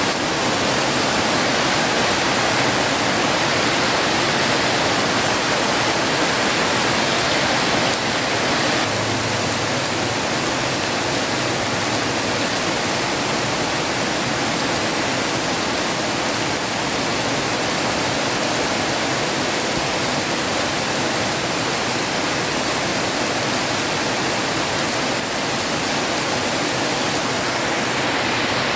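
Heavy rain falling in a steady, dense hiss, with no thunder. It gets slightly quieter about eight seconds in.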